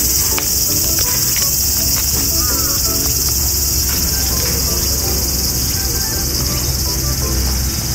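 Steady, high-pitched drone of a summer insect chorus, with short melodic notes of background music under it.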